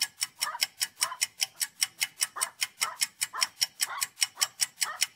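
Ticking-clock sound effect: a mechanical clock ticking fast and evenly, about five or six sharp ticks a second, marking time passing.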